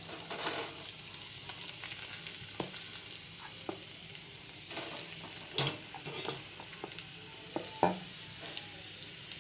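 Boiled potatoes frying in hot oil in a pan, sizzling steadily while they are stirred. A stirring utensil knocks against the pan several times, most sharply about five and a half seconds in.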